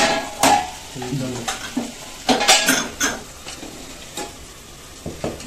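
Steel ladle scraping and clinking against the inside of an aluminium pressure cooker as cooked rice is stirred and turned over, in irregular strokes.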